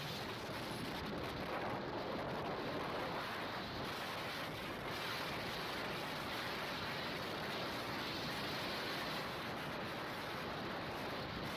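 Steady rush of wind buffeting the microphone on a moving motorcycle at highway speed, with no clear engine note showing through.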